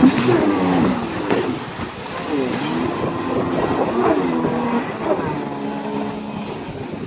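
A Kawasaki stand-up jet ski's two-stroke engine revving, its pitch swooping down and up several times as it throttles through tight turns, with water spray hissing underneath.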